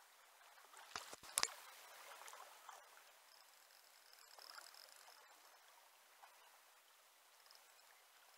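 Faint steady rush of river current, with a few sharp clicks about a second in, the last of them the loudest, and a thin high steady whine for about two seconds in the middle.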